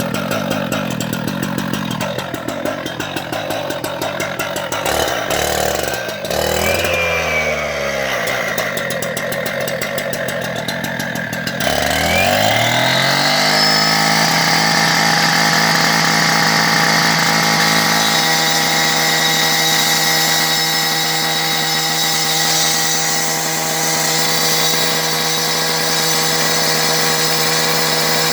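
Cut-off saw running loud: its pitch dips and shifts in the first part, then about halfway it spins up with a rising whine and runs steadily at full speed.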